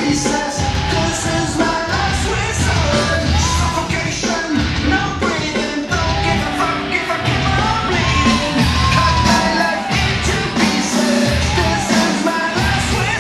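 Loud live rock music: electric guitars over a heavy, pulsing beat with sung and yelled vocals.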